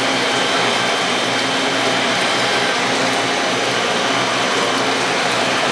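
Steady loud whirring of running industrial machinery, with an even hiss over a low electrical hum and no knocks or changes.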